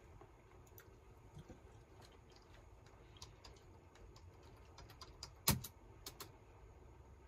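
Scattered light clicks of a computer mouse and keyboard at a desk, with one much louder sharp knock about five and a half seconds in and two smaller clicks just after.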